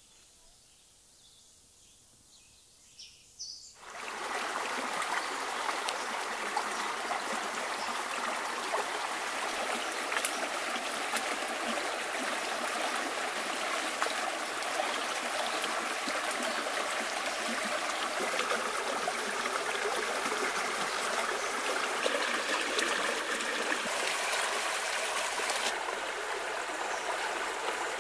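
Mountain river flowing: a steady rush of water that starts suddenly about four seconds in, after a near-quiet start broken by a couple of faint knocks.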